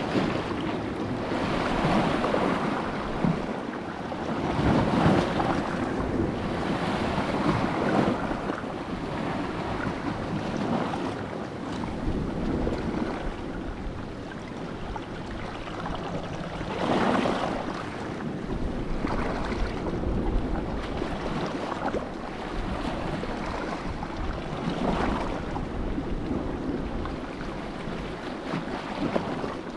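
Wind buffeting the microphone over waves washing on the shore, a steady rushing that swells and eases in surges every few seconds.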